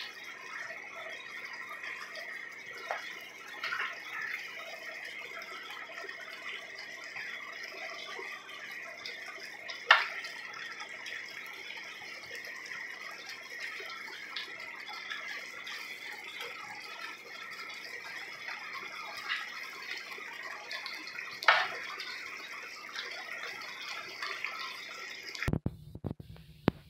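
Thick cream sauce simmering in an electric skillet, a steady bubbling hiss with small pops as a spoon works through it. A few sharp knocks stand out, the loudest about ten seconds in and again about twenty-one seconds in.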